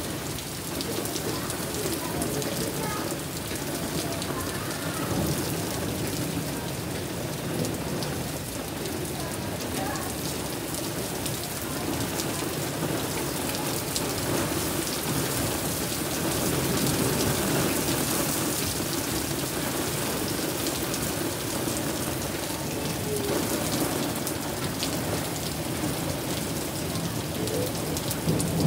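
Heavy rain pouring down steadily in a thunderstorm, the downpour swelling a little about halfway through.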